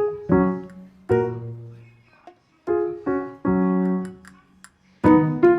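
Background piano music: short phrases of struck, decaying notes and chords with brief pauses between them.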